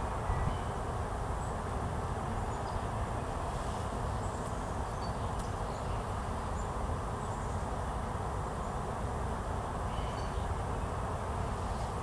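Steady outdoor background noise, a low even rush, with a few faint, brief high chirps scattered through it.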